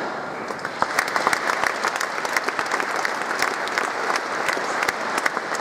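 A large seated audience applauding inside a cathedral, with dense, steady clapping.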